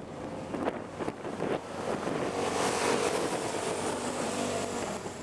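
Racing engine of a Racer 250 class autocross car passing at speed: it swells to its loudest about halfway through, then fades.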